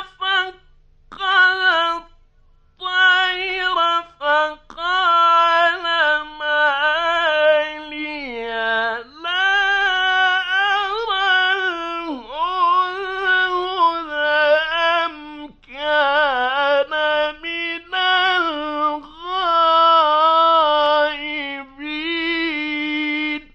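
A male reciter chanting the Quran in the melodic mujawwad (tajweed) style. He sings long, high, ornamented phrases separated by brief pauses for breath.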